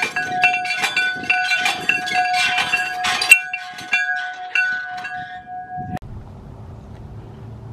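A hanging bell on a post, rung by pulling its rope: rapid clangs, about two to three a second, over a steady ring, signalling that a hole has been completed. It cuts off suddenly about six seconds in, leaving faint steady background noise.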